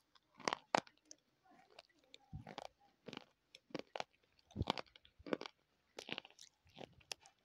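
Close-up chewing of a hard, brittle dark bar held near a clip-on microphone: a dozen or so sharp, irregular crunches with short quiet gaps between them.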